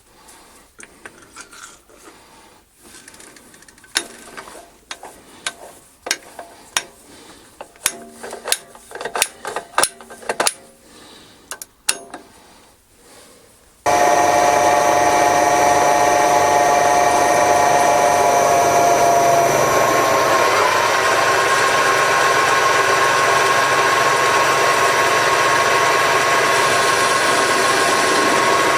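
Scattered light clicks and knocks of hand work on metal, then a workshop machine tool running loudly and steadily with a whine. The whine's tone shifts a few seconds after it starts.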